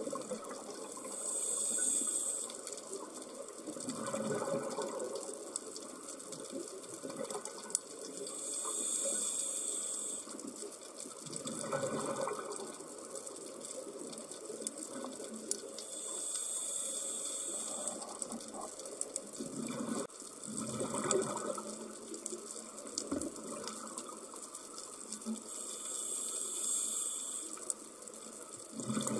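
Scuba diver breathing through a regulator underwater, heard from the camera diver: four slow breaths about eight seconds apart. Each is a hiss of inhalation followed by bubbling as the exhaled air leaves the regulator.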